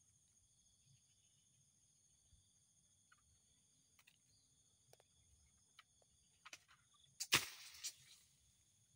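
Steady high-pitched insect chorus with scattered faint clicks, and one sudden loud rustling burst a little after seven seconds in that dies away within about a second.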